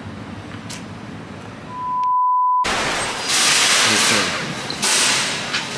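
Steady background hiss. About two seconds in, a single steady beep tone lasting about a second, then a moment of dead silence. After that comes a loud rushing noise with faint voices.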